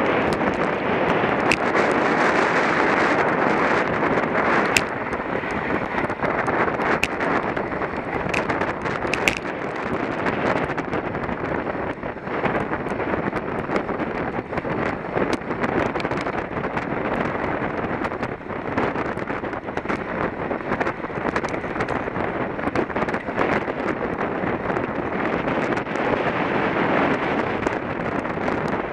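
Steady wind noise buffeting the microphone of a bicycle racing at speed, with a few sharp clicks, most of them in the first ten seconds.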